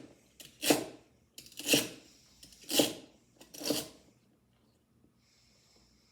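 Knife chopping celery on a cutting board: four strokes about a second apart, stopping about four seconds in.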